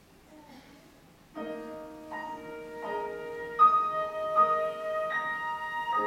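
Faint room sound, then about a second and a half in a live orchestra with piano begins a song's slow introduction: a sequence of held chords, a new chord roughly every three-quarters of a second.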